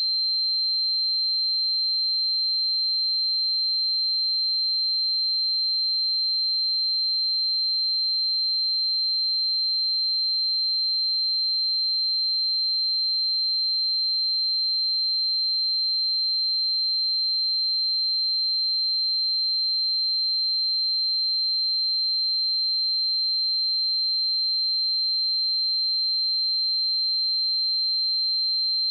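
A steady, pure 4135 Hz sine-wave test tone, high-pitched and unbroken, at a constant level.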